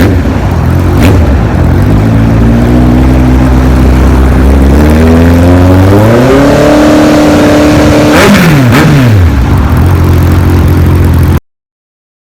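Honda CB650R's inline-four engine, through an aftermarket full-system exhaust, idling, then revved up and held high for a couple of seconds before the revs drop quickly back to idle with a crackle from the exhaust. The sound cuts off abruptly near the end.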